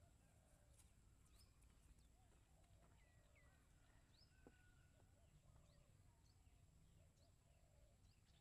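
Near silence with faint scattered bird chirps and short whistled calls over a low background hum.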